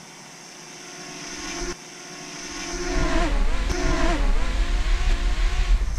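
DJI Mini 2 quadcopter's propellers buzzing with a high whine. The sound grows louder, and about halfway in its pitch wavers and bends as the drone manoeuvres. Wind rumbles on the microphone.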